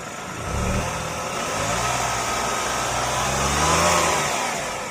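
Tata Punch's 1.2-litre three-cylinder petrol engine, the older pre-2023 version, revved from idle with the bonnet open: a short blip about half a second in, then a longer rev that climbs, peaks near the end and drops back.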